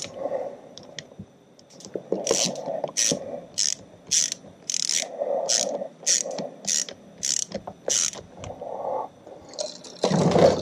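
Socket ratchet clicking through short back-and-forth swings, a regular stroke about every half-second, running a stator mounting screw into an outboard powerhead. A louder, longer burst of handling noise comes near the end.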